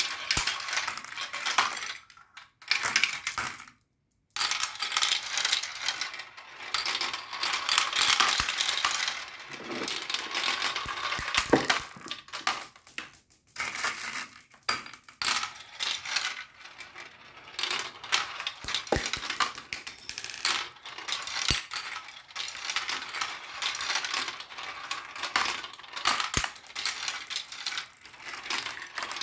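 Many marbles rolling and clattering down a marble run, a dense stream of clicks and rattles. The sound cuts out briefly about two seconds and four seconds in.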